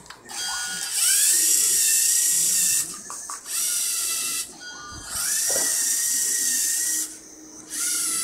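LEGO Mindstorms EV3 robot's electric motors driving its rubber tracks: a high gear whine that rises in pitch as each run starts. It comes in four runs of one to two seconds, with short pauses between them.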